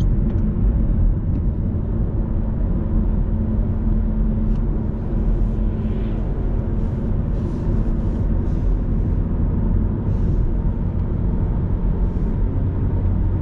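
In-cabin sound of a 2007 Audi A3 Sportback's 1.6 FSI four-cylinder petrol engine running at a steady cruise, with low road and tyre rumble. An oncoming car passes about six seconds in.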